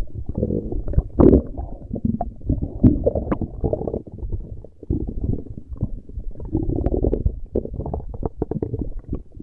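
Stomach growling: a continuous, irregular run of low gurgles and rumbles with many short pops and clicks.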